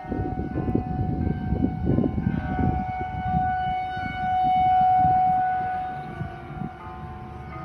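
Outdoor tornado warning siren wailing on one steady pitch, swelling to its loudest about five seconds in and then fading. Church bells ring faintly underneath, and a gusty low rumble covers the first few seconds.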